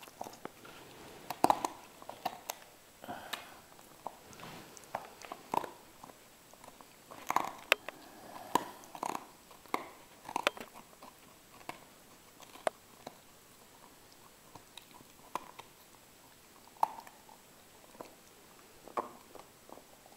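Dog gnawing a bone: irregular crunches and clicks of teeth on bone, coming thick in the first half and more sparsely later.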